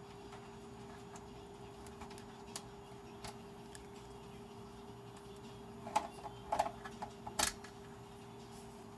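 Small clicks and taps of a screwdriver and screws against the metal case of a desktop computer power supply as it is unscrewed: sparse at first, then a cluster of sharper clicks about six to seven and a half seconds in, over a faint steady hum.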